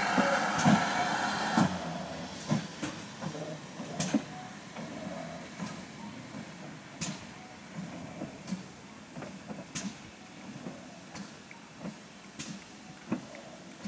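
GWR Prairie 2-6-2 tank steam locomotive pulling away: a loud hiss of steam that cuts off about a second and a half in, then soft exhaust beats and scattered sharp metallic clicks, fading as the engine draws away.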